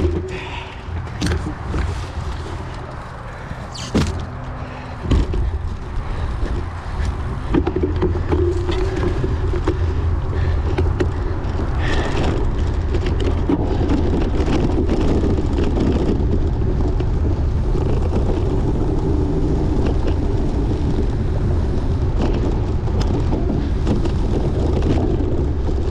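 Wind on the microphone and a race bicycle rattling and jolting over rough ground, with several sharp knocks in the first few seconds. The noise grows louder and steadier from about seven seconds in.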